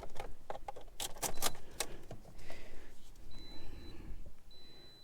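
A handful of sharp plastic clicks and taps from handling a handheld OBD2 scan tool and its cable in the first two seconds, then a faint steady high tone that comes and goes.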